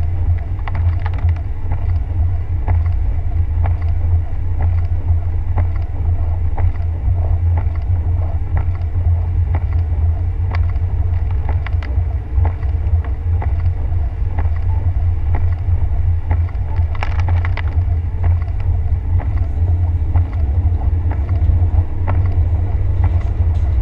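Steady low rumble of a car driving on a wet road, heard from inside the cabin, with scattered light ticks and a brief louder hiss about two-thirds of the way through.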